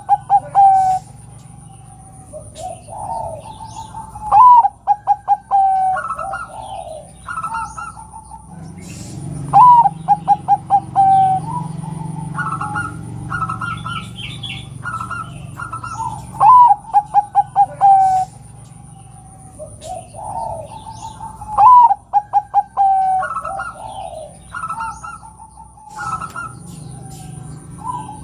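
Zebra dove (perkutut) cooing. Five times, about every five or six seconds, it gives a phrase that opens on a higher note and runs into a quick string of short staccato coos. Shorter single coos come in between.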